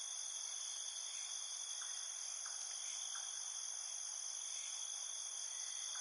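Insect chorus: a continuous high-pitched trilling that never pauses, with a few faint short chirps scattered through it.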